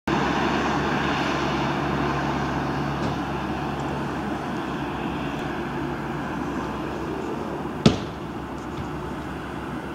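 Steady vehicle engine and road noise with a low hum that fades away about halfway through, and a single sharp click near the end.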